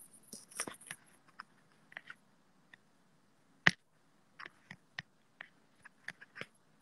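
Faint scattered clicks and taps of a phone being handled and tapped while its Wi-Fi is switched off, with one sharper knock about three and a half seconds in.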